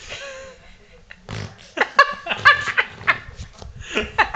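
A young child blowing a raspberry against an ottoman's upholstery, a short fart-like blurt about a second in, followed by a run of laughter.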